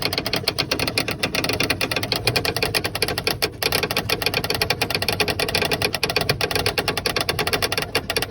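Wind-up camper's roof-lifting winch being wound up, its mechanism clicking rapidly and steadily as the roof rises, with one brief pause about three and a half seconds in.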